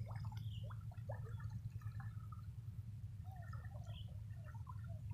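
Water sloshing and dripping as a man wades and works a cast net by hand, with small scattered splashes over a steady low rumble.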